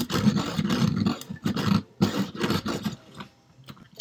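Pencil being sharpened in a pencil sharpener: a harsh grinding in three stretches with short breaks, stopping about three seconds in, then a few light clicks.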